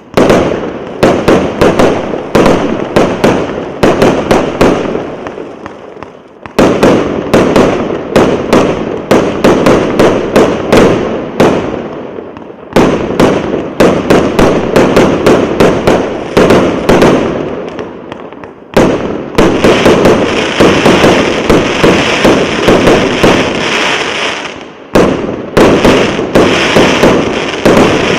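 Multi-shot firework battery (cake) firing: a rapid run of sharp shots and bursts, several a second, in volleys broken by short dips near 6, 12, 18 and 25 seconds. The later volleys carry more hiss higher up.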